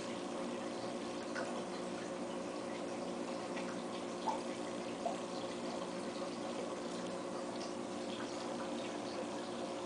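Aquarium water bubbling and trickling from the tank's filter and air stream, with small scattered plinks of bubbles over a steady hum from the running equipment.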